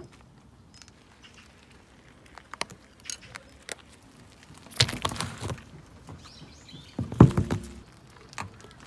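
Scattered crackles and crunches of things being crushed, with two louder bursts of crunching about five and seven seconds in.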